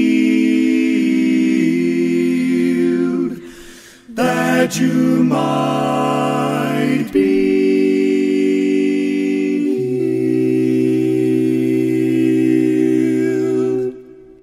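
Male vocal quartet singing a cappella in close harmony, holding long sustained chords with short breaks between phrases. The bass drops to a lower note partway through, and the final held chord ends just before the end.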